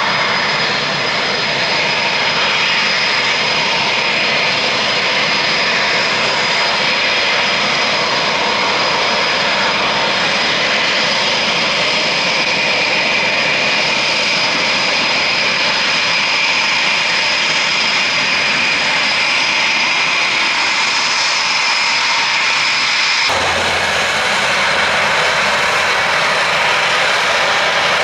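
Jet aircraft engine running with a steady roar and a high whine, changing abruptly about 23 seconds in.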